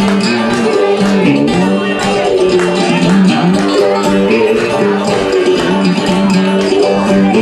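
Live instrumental music: a guitar strummed with a harmonica played in a neck rack, with sustained and bent harmonica notes over the strumming.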